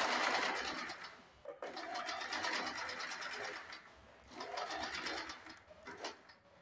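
Small electric sewing machine stitching a straight seam along a blouse tuck, its needle running at a fast, even clatter. It runs in short stretches, pausing briefly about a second and a half in and again around four seconds in, with a last short run near the end.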